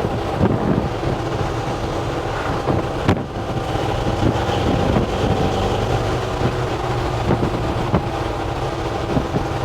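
1966 Chevy C10's 383 stroker small-block V8 cruising steadily at highway speed, heard from inside the cab with wind and road noise. The engine holds an even, unstrained drone, not screaming at 55–60 mph.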